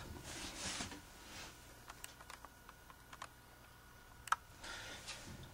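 Faint, scattered small clicks and light rubbing of brass compression-valve parts (nut, brass ring and valve body) being handled and slid on a copper pipe, with one sharper click about four seconds in.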